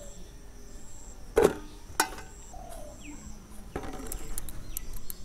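Two sharp knocks about half a second apart, the first the loudest, then lighter clicks and handling noise near the end. A dove coos once in the background, over a faint, high, on-and-off insect trill.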